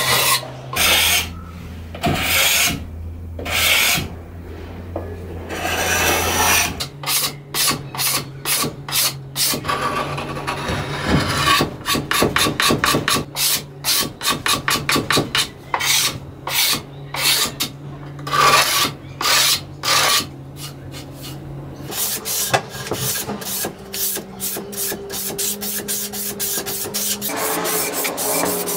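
Steel card scraper scraping dark stain off the rounded edge of a wooden table panel, in hand strokes: a few slow, drawn-out strokes at first, then quicker runs of several strokes a second.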